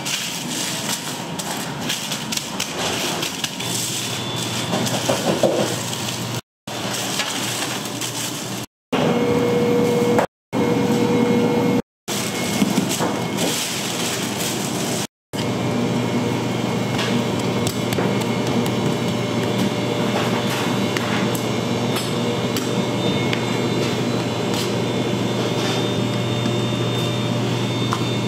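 Bakery work sounds in several short spliced shots: scattered knocks and taps. From about 15 seconds in, a steady machine hum runs under light clicks.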